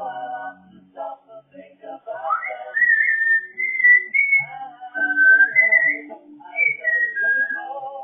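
African grey parrot whistling and singing a tune: a string of high whistled notes, some gliding up and down, mixed with lower sung notes, in short phrases with brief breaks.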